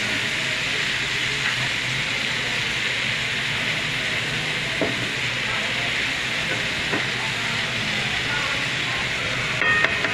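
Diced apples sizzling steadily in hot oil in a nonstick frying pan as they are stirred with a spatula, with a few light clicks of the spatula against the pan.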